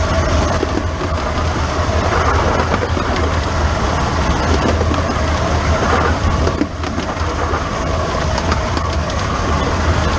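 The small 15-inch gauge steam locomotive 'The Bug' running, heard close up from its injector pipe: a steady, dense clatter of wheels on rail and moving parts, with a brief dip about six and a half seconds in.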